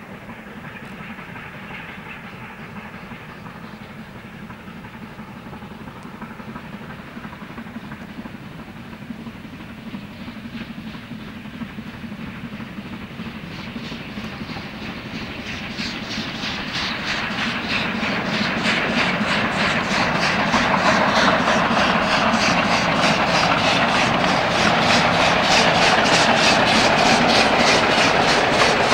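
Hedjaz Railway steam locomotive working hard, its exhaust beats growing louder as it approaches. In the second half the beats come as a rapid, even chuffing.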